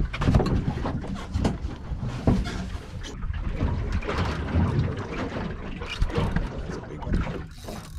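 Small fishing boat drifting in a choppy sea: uneven rumbling of wind and water against the hull, with irregular knocks and thumps from the boat and gear.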